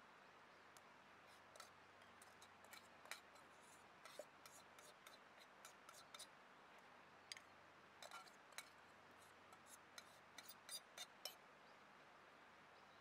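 Spoon scraping and clinking against a metal camp pot as chicken curry is scooped out onto an enamel plate: a run of small, light clicks and scrapes that stops near the end.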